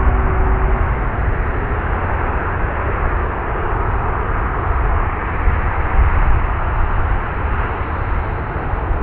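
Boeing 737-800 jet engines running: a steady rush of noise with a deep rumble underneath.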